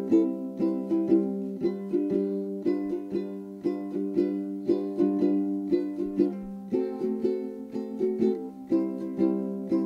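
Background music: a light instrumental tune of plucked, strummed chords with a steady beat, changing chord about two-thirds of the way through.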